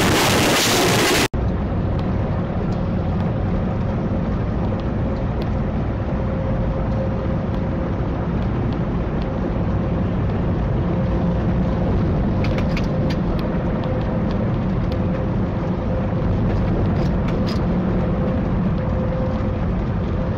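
Steady engine and road drone heard inside a truck cab at highway speed, with a faint steady hum. It follows a loud rushing noise that cuts off abruptly about a second in.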